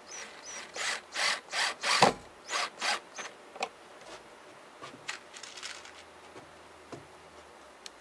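Wood being worked by hand, back and forth: about eight quick scraping strokes in the first three seconds, then scattered light clicks as tools are handled.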